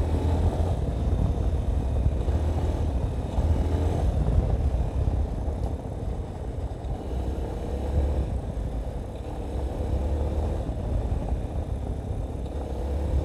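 Yamaha Ténéré 250's single-cylinder four-stroke engine running under way on a dirt track. Its note drifts up and down as the throttle changes, over a steady deep rumble.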